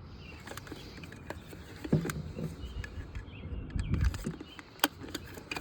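Scattered sharp clicks and light knocks of plastic toilet fill valve parts being handled, as the valve's top cap is pushed back on.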